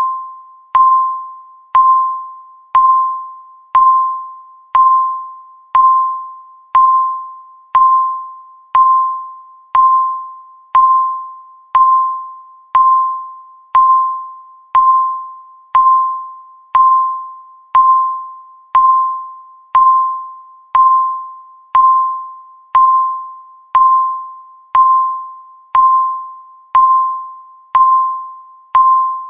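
Countdown timer's tick sound: a short, pinging electronic tick once a second, each one a sharp click with a brief ringing tone that fades quickly.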